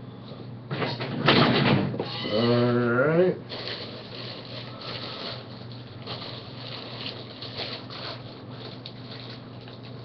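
Plastic wrap and cardboard packaging rustling and crinkling as it is handled, loudest for about a second near the start. About two seconds in there is a brief hum from a man's voice. A steady low hum runs underneath.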